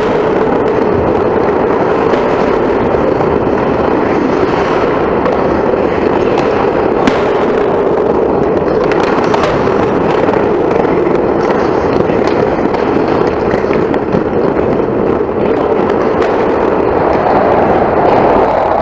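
Loud, continuous crackling noise of an ice hockey game as heard close to the net: skates cutting the ice and sticks working the puck. There is one sharp click about seven seconds in.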